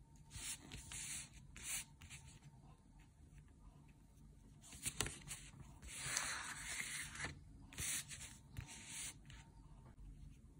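Flat paintbrush rubbing over paper with acrylic paint, a string of short soft scratchy strokes.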